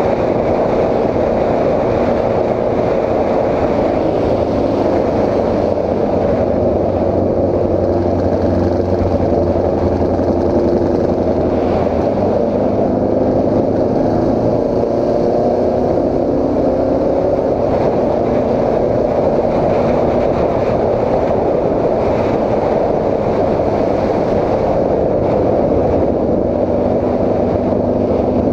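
Honda CB750 inline-four engine running steadily while the motorcycle cruises, its pitch drifting slightly up and down, with road and wind noise.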